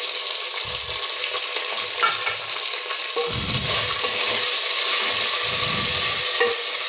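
Crushed green chillies sizzling as they hit hot mustard oil and ginger paste in an aluminium pot, with a wooden spoon stirring through them. The sizzle grows a little louder about halfway, with a few low knocks from the spoon.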